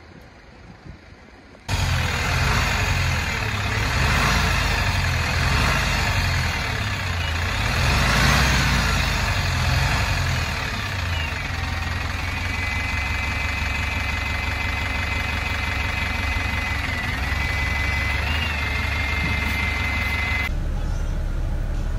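Alexander Dennis Enviro 400 MMC double-decker bus engine running, starting abruptly about two seconds in with a heavy rumble. A thin high whine comes in about halfway and stops shortly before the end.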